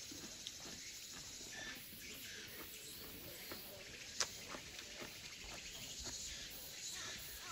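Footsteps on a stone-stepped forest trail: scattered soft knocks and one sharp click about four seconds in. Under them runs a steady high insect sound.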